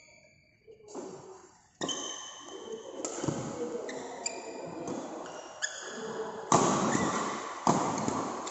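A badminton rally in a large hall: several sharp racket hits on the shuttlecock, about a second apart, with high-pitched shoe squeaks on the court floor over the echoing hall's background noise.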